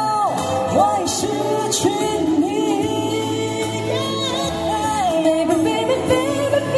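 Mandopop song performed live: a singer's voice gliding through held and bending notes over instrumental accompaniment.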